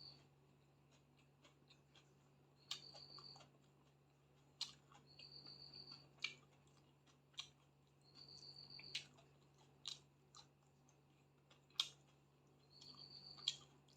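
A person chewing food, with quiet mouth clicks and crunches between swallows. A short, high steady peep recurs every two to three seconds behind it.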